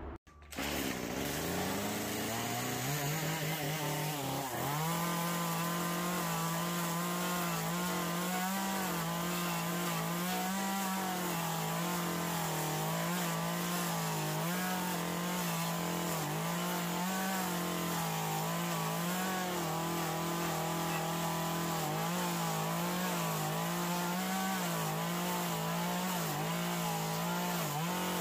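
Two-stroke gas chainsaw revving up and then cutting into western red cedar at high throttle. Its engine note climbs over the first few seconds, then holds steady, wavering slightly as the load on the chain changes.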